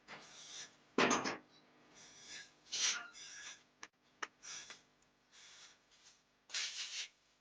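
Irregular scraping and rubbing, the loudest about a second in, with two sharp clicks near the middle and another scrape near the end.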